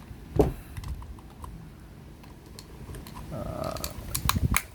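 Flathead screwdriver prying at the plastic side cover of an Xbox Series X controller: scattered sharp plastic clicks and snaps as the clips give, with one loud click about half a second in and a quick run of clicks near the end.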